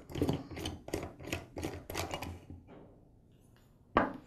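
Plastic clicking as the bump head knob of a Ryobi 132R electric string trimmer is unscrewed by hand: about four clicks a second for roughly two and a half seconds. A single sharp knock comes near the end.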